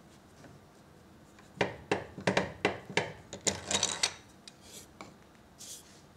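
Bench clamp being released and lifted off its round steel post in the bench's dog hole: a quick run of about ten sharp metal clicks and clatters over some two and a half seconds. A few fainter knocks follow, and a soft rub near the end.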